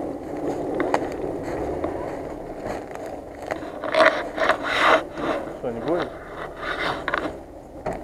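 Dry fallen leaves crunching and rustling in a run of short bursts from about four to seven seconds in, over a steady low running hum from the off-road Jeep's engine.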